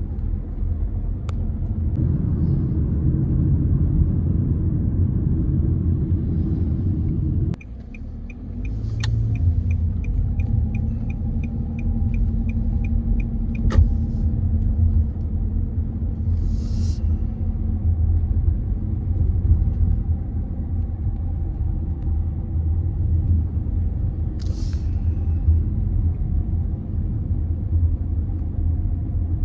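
Road and engine rumble heard from inside a moving vehicle. About seven seconds in the rumble drops off sharply as the vehicle slows, and a turn-signal clicker ticks about three times a second for some five seconds before the rumble builds up again. Two brief hisses come later.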